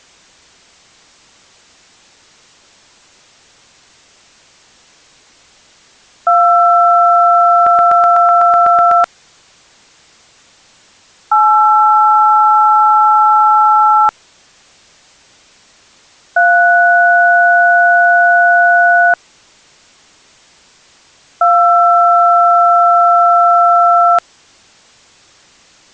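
Four long touch-tone (DTMF) dual tones, each held about three seconds with a couple of seconds of faint hiss between them; the pairs match the keys 2, 8, 3 and 2. A quick run of clicks sounds during the first tone.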